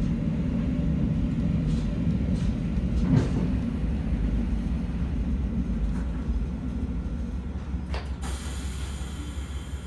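Local diesel train seen from inside the car as it slows into a station: a steady low rumble of engine and wheels, slowly dying away as it comes to a stop, with a few faint clicks. A steady hiss starts a little after eight seconds.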